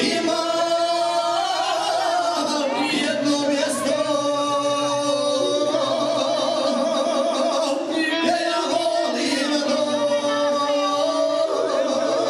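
Men singing through handheld microphones over a PA, long drawn-out notes with a wavering, ornamented quality and the pitch shifting every few seconds.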